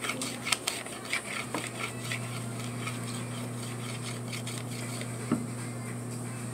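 A baby's plastic spoon clicking and scraping against a plastic bowl in a quick run of light taps, then a single knock as a plastic sippy cup is set down on a wooden table.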